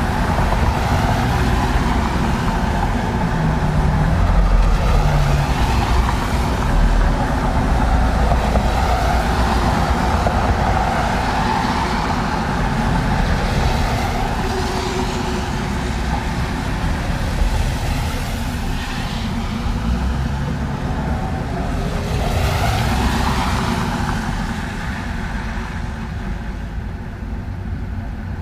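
Traffic on a wet road: cars pass with tyres hissing on the wet asphalt over a steady low rumble. A few passes swell and fade away, and the traffic eases slightly near the end.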